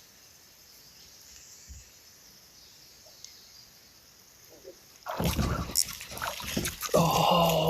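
Faint river ambience, then about five seconds in a loud burst of water splashing and sloshing close to the kayak, lasting about two seconds, followed near the end by a man's drawn-out exclamation.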